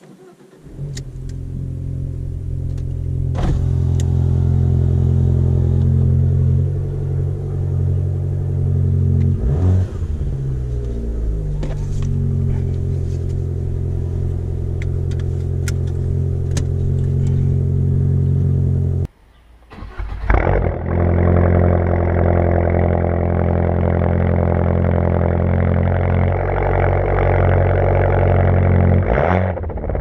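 Alfa Romeo MiTo 1.4 four-cylinder with a straight-through exhaust starting from cold about half a second in, then idling steadily with a few short throttle blips. After a brief gap a little past the middle, the idle is heard right at the Akrapovič tailpipes, louder and raspier, with one more blip near the end.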